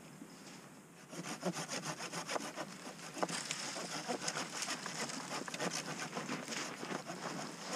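Hand saw cutting through a dead branch in quick back-and-forth strokes, starting about a second in.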